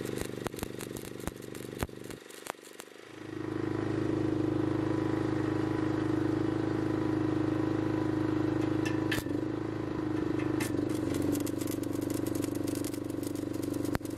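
Stick (arc) welding on steel angle: a steady electrical hum sets in about three seconds in, with the arc crackling and ticking over it, densest near the end.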